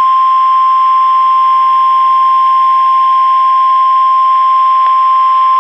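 NOAA Weather Radio's 1050 Hz warning alarm tone: a single loud, steady tone over faint radio hiss, cutting off abruptly at the very end. It signals that a severe thunderstorm watch alert is about to be read.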